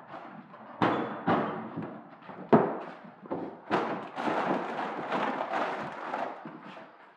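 Food packages knocked about on a table in a few sharp thumps, then several seconds of plastic bags and wrappers crinkling as they are rummaged through.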